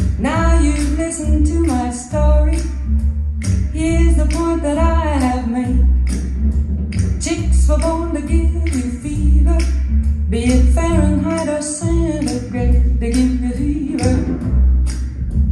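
A recorded song played back through Magneplanar 3.7i panel loudspeakers with subwoofers: a female voice singing over a deep, pulsing bass line, with sharp regular clicks keeping the beat.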